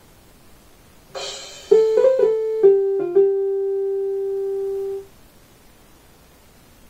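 Piano-toned keyboard playing a short phrase of five notes that step downward, the last one held for about two seconds before stopping suddenly; a brief softer sound comes just before the first note.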